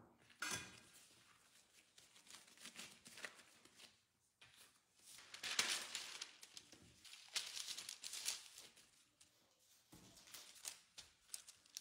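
A metal bench scraper cuts through dough and knocks the countertop about half a second in. Then a sheet of baking paper crinkles as it is spread out, the loudest sound here, for several seconds.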